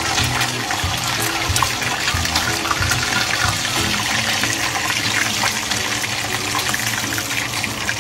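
Pork chops deep-frying in hot oil in a wok: a steady, dense sizzle full of small crackles and pops.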